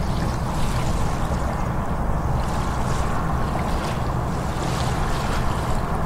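Steady wind noise on the microphone with lake water lapping against a concrete pier, a constant uneven low rumble under irregular small splashes.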